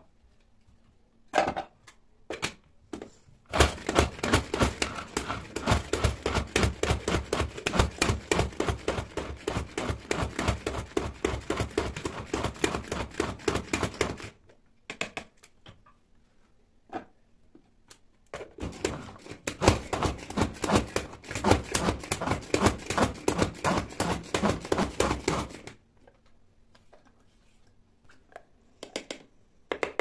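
Push-top mini food chopper chopping onions in a rapid, rhythmic clatter for about ten seconds, then, after a pause, chopping green peppers the same way for about seven seconds. A few short knocks come before the first run as the lid goes on.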